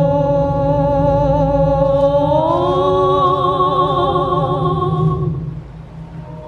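Eerie music of long, wavering, voice-like held tones in several parts, gliding up in pitch together about two seconds in, over a steady low hum. The tones and hum fade away about five and a half seconds in.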